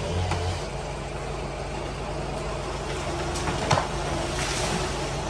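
An engine idling steadily at a low level, with one sharp knock a little over halfway through.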